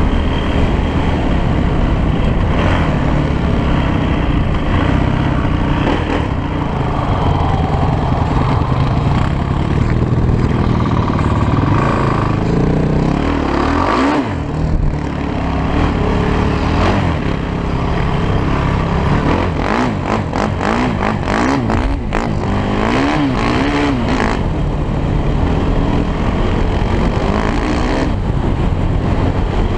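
Honda TRX450ER sport quad's single-cylinder four-stroke engine, with a piped stock exhaust, running under way. The revs rise and fall with the throttle, ease off briefly about halfway, and swing up and down quickly several times in a row later on.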